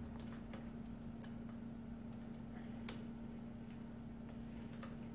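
Faint, irregular small metallic clicks and ticks of an Allen key working the screws that fix a folding-lock mounting bracket to a bicycle frame, over a steady low hum.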